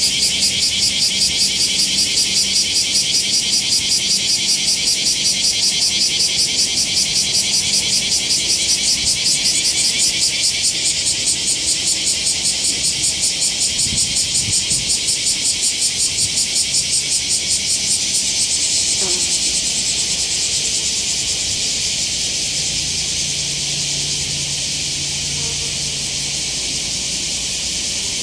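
Loud, high-pitched chorus of singing insects, most likely cicadas, pulsing rapidly and evenly. About two-thirds of the way through the pulsing fades into a steadier drone.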